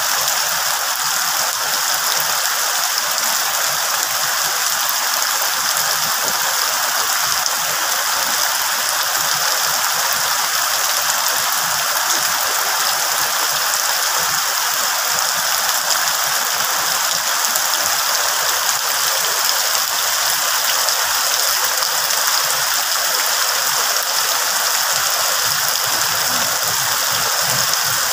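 Steady rain falling on broad banana leaves and other foliage, a dense, even hiss.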